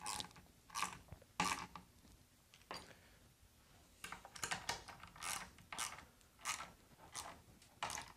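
Hand ratchet clicking in short bursts on the back-swings as bolts are snugged down in turn, about a dozen bursts with short pauses between.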